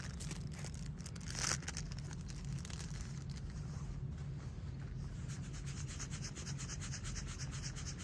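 Steady scratchy rubbing noise with a brief louder scrape about a second and a half in.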